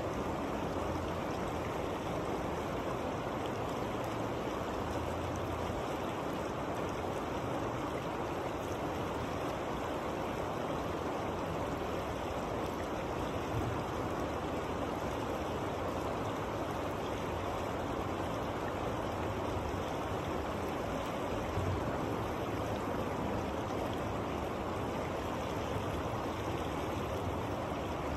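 Steady rushing of a fast river current flowing over rocks close by, an even wash of water noise.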